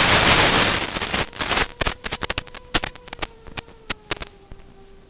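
Analog FPV video receiver static as the drone's video link breaks up: a loud hiss for about the first second and a half, then crackles and pops that thin out as the signal recovers, over a faint steady hum.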